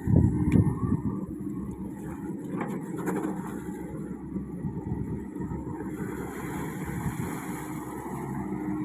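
Komatsu PC55 mini excavator's diesel engine running steadily while it digs, loudest in a brief surge right at the start, with a few light knocks.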